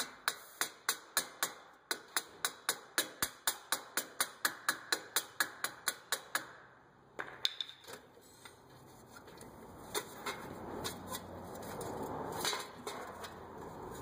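Hammer tapping the steel wheel hub assembly into the steering knuckle, about four quick light strikes a second for some six seconds, then one last tap. After that, softer knocks and scrapes of the hub being handled.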